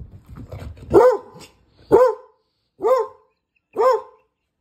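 A dog barking four times, about a second apart, each bark rising and then falling in pitch.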